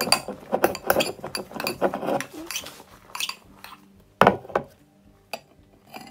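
Metal spoon stirring thick, foamy shaving-cream slime in a porcelain bowl, clinking against the bowl in quick repeated strokes for about two seconds, then fewer, with one louder knock about four seconds in. The slime is nearly set, pulling away from the spoon by itself.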